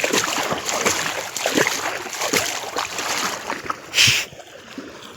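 Water splashing and sloshing from people wading through a shallow canal while fishing, a rapid, irregular run of splashes. A short loud burst comes about four seconds in, and the sound is quieter after it.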